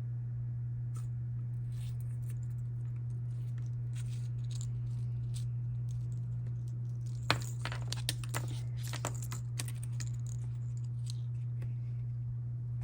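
Steady low electrical hum, with a run of light clicks and taps starting about seven seconds in, the first one the sharpest: small RCA plug parts and tools being handled during soldering.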